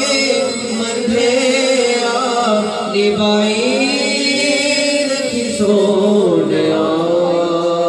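Unaccompanied male voice singing a devotional naat in long held notes that bend up and down, with a steadier lower note held beneath.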